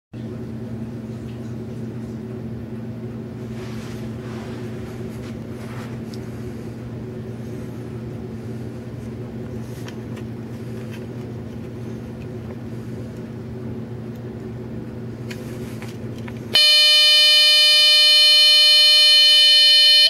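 A steady low hum with faint handling clicks, then, about three-quarters of the way through, a kit-built burglar alarm circuit's small loudspeaker suddenly sounds a loud, steady, buzzy tone for about three and a half seconds before stopping, the alarm being set off.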